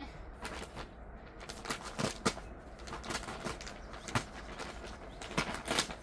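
Plastic sack of livestock-manure compost crinkling and rustling as it is slit open with a knife and handled, in irregular sharp crackles with a few dull thumps.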